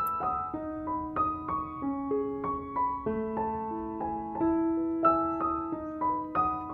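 Background piano music: a gentle melody of struck notes, a few a second, over held lower notes.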